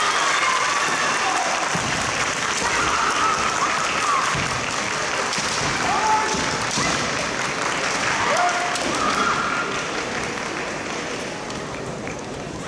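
Hall audience applauding, the usual response to a scored point in a kendo bout, with voices calling over it. The applause eases off toward the end.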